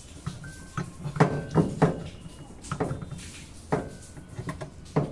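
Irregular clinks and knocks of hand tools and metal parts being handled while a top-load washing machine's motor and gearbox mechanism are unbolted. The loudest knocks are bunched between one and two seconds in.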